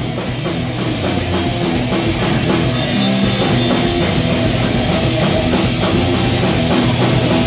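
Thrash metal band playing live: fast, heavily distorted electric guitar riffing over rapid drum kit beats, with no vocals in this stretch.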